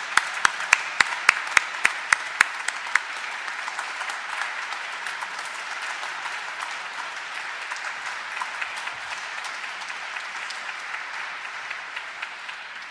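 Congregation applauding in a large church. For the first couple of seconds a few loud, close claps stand out over the rest, then the applause goes on evenly and slowly dies down near the end.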